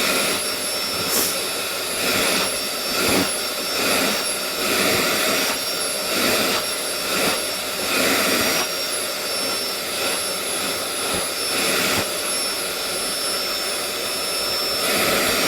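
Vacuum cleaner running with a steady high-pitched whine, its noise swelling and easing every second or so as the nozzle is drawn over a cat's fur.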